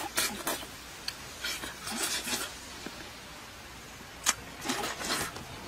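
A person eating ripe papaya: close-up mouth sounds of biting and chewing in short irregular bursts, with one sharp click a little over four seconds in.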